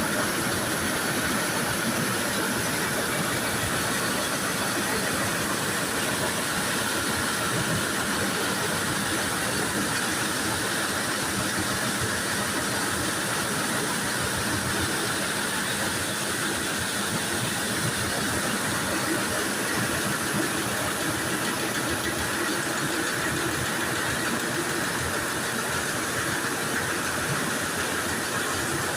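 Coffee-drying machinery running steadily: an even mechanical hum and hiss that holds without change.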